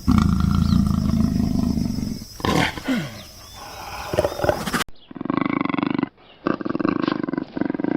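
Animal calls: a loud, low call in the first two seconds, then, after an abrupt change about five seconds in, a different clip of repeated pulsing calls, each about a second long with short pauses between.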